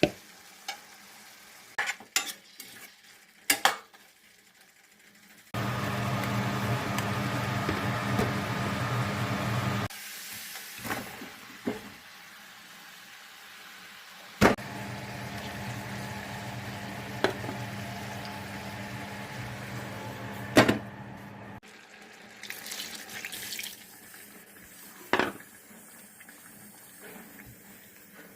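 Kitchen sounds: dishes and utensils clinking and knocking, with two long stretches of water running steadily from a tap, the first the louder.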